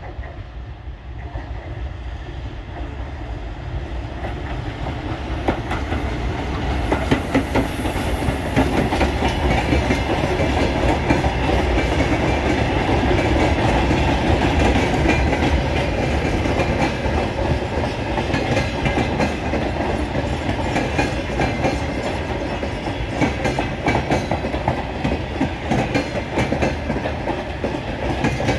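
A Siemens ER20CF Eurorunner diesel locomotive approaches and passes, growing louder over the first several seconds. A long freight train of hopper and flat wagons then rolls by, its wheels clicking steadily over the rail joints.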